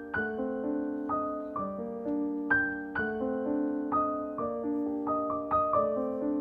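Background music: a gentle solo piano playing a slow melody over sustained chords, notes struck about every half second.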